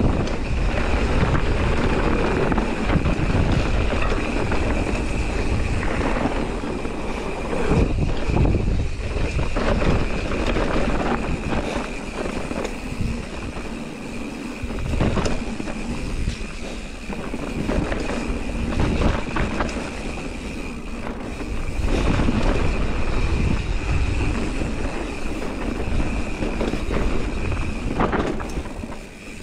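Mountain bike riding down a dirt singletrack: tyres rolling over dirt with frequent knocks and rattles from the bike over bumps, mixed with wind rumble on the microphone. The noise swells and eases over the ride.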